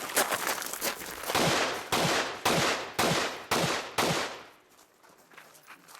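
A .308 AR-10 rifle firing a quick string of about six shots, roughly two a second, each with a short echo, then stopping.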